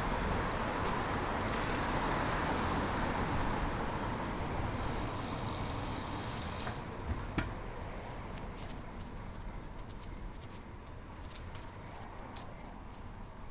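Steady noise of riding a bicycle along a city street, wind and traffic hiss, easing about seven seconds in, with one sharp click just after.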